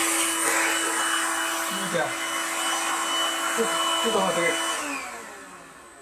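Stick vacuum cleaner running with a steady motor whine and hiss, then switched off about five seconds in, its motor winding down in pitch. A few short, low cat growls sound over it.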